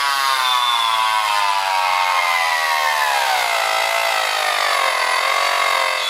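Harbor Freight Mighty Mite 4-inch mini table saw cutting a dado pass in thin wood, its motor whine falling steadily in pitch as the weak motor bogs down under the load, then climbing a little near the end. The blade barely makes the cut and burns through the wood.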